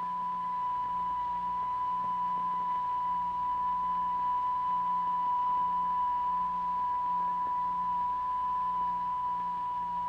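A steady, high, pure sine tone from a tone generator, the frequency vibrating the cymatics medium into the standing particle figures.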